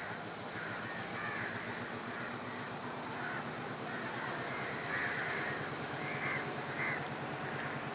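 Crows cawing over and over, about one harsh call a second, over the low steady running of a diesel locomotive's engine.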